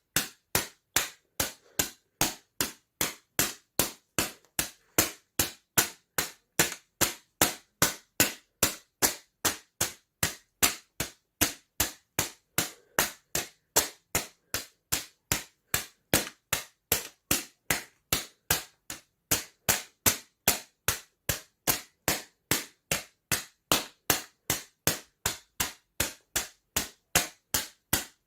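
Sharp snapping sounds from paper, repeated at a very even pace of a little over two a second, each one dying away quickly.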